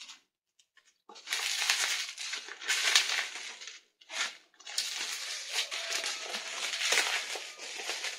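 Crinkly plastic wrapping crackling and rustling as a small package is unwrapped by hand, starting about a second in and running in two long stretches with a short break about four seconds in.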